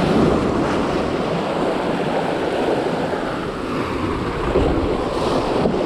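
Waves breaking and washing over the jetty's boulders, a steady rushing surf, with wind buffeting the microphone.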